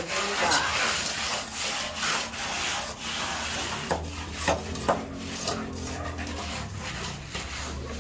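Plastering trowel scraping and smoothing wet cement plaster on a wall in repeated strokes, with a couple of sharp knocks partway through.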